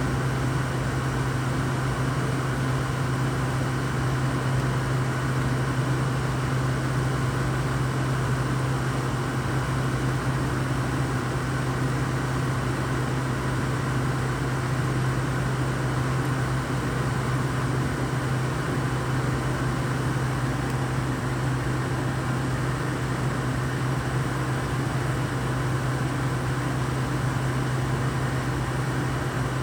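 Frigidaire window air conditioner running with a steady low hum and the rush of its fan. The owner hears no sign of the compressor having kicked on.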